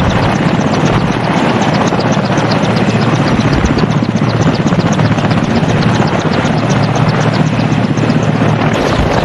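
Helicopter flying with a fast, steady rotor chop.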